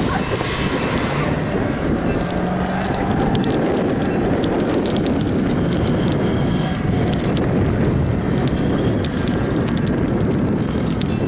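Toyota rock crawler's engine revving hard under load as its big tyres spin through loose dirt and gravel, with a scatter of sharp clicks from thrown stones.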